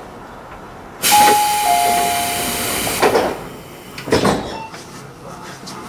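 Tobu commuter train standing at a station: a sudden loud hiss of compressed air about a second in, lasting about two seconds, with a two-note chime (high then lower) sounding over it. Two sharp knocks follow about a second apart, typical of the sliding doors closing as the train readies to depart.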